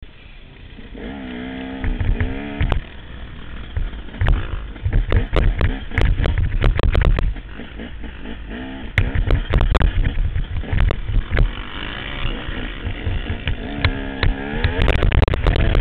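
Dirt bike engine heard from the rider's onboard camera, revving up and falling back several times as the rider accelerates and shifts, over a heavy low rumble. Sharp knocks and wind buffeting from the rough ride hit the microphone throughout.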